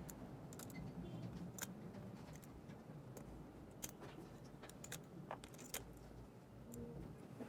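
Faint, scattered small clicks and taps as a tool pops the battery and flex-cable connectors off a smartphone's main board.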